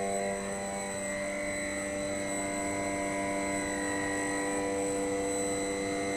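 Sabroe ammonia screw compressor running steadily: a constant machine hum carrying several fixed tones, low and high, that do not change in pitch.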